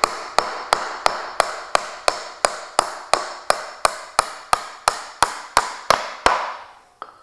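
Claw hammer driving a nail at an angle into a wooden board (toenailing): steady, even strikes about three a second, each with a short ring. They stop a little after six seconds.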